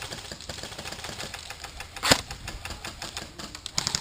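Airsoft guns firing: rapid ticking shots, with one loud sharp crack about two seconds in.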